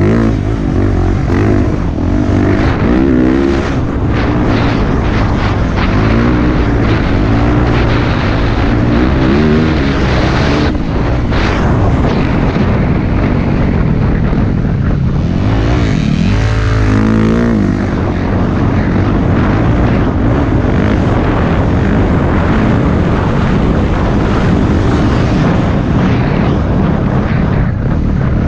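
Dirt bike engine running hard, its pitch rising and falling again and again as it revs up and backs off.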